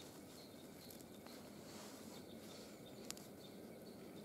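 Faint handling of sticks and cord as a joint of a stick frame is lashed by hand, with one sharp click about three seconds in. A faint high chirp repeats about twice a second behind it.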